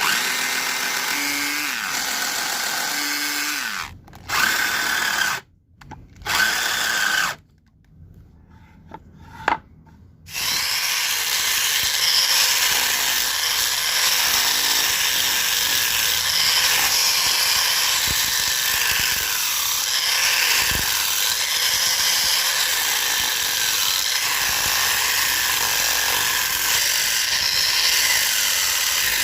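Electric power tool working wood: run in a few short bursts that stop abruptly, then running continuously from about ten seconds in.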